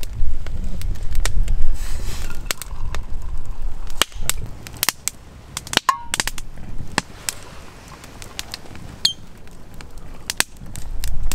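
Wood crackling and popping with sharp irregular snaps in a small Bushbox pocket wood stove. A low rumble of wind on the microphone fills the first few seconds. About six seconds in there is a brief ringing clink as two metal mugs touch.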